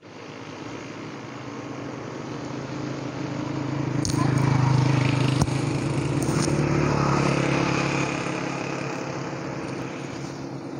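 Muddy floodwater rushing and churning past a concrete wall, with a steady engine hum over it that grows to its loudest about halfway through and then fades.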